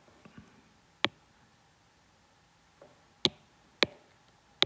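Stylus tapping on a tablet screen: four sharp, separate clicks spread unevenly over a few seconds, with a few fainter ticks between them, over a quiet background.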